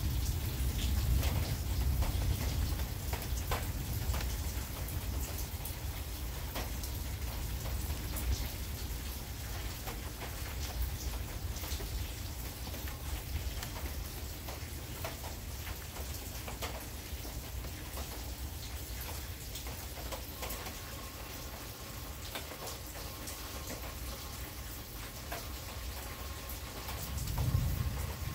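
Rain falling, with many single drop hits clicking on nearby surfaces. A low rumble of thunder dies away over the first few seconds, and another short low rumble swells up near the end.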